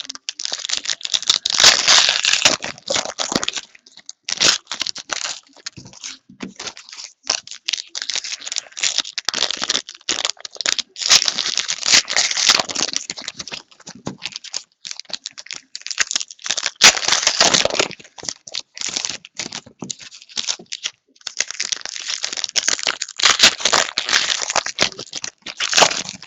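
Plastic trading-card pack wrappers crinkling and tearing as packs are ripped open and handled, in irregular bursts with short pauses between.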